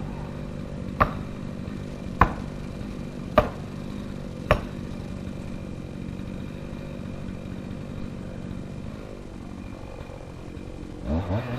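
Four sharp blows struck at an even pace, a little over a second apart, over an engine running steadily; near the end the engine's pitch rises as it revs up.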